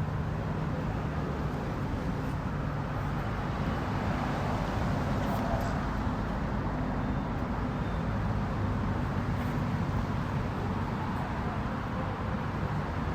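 Engines running steadily at low revs, a low rumble over a constant outdoor background.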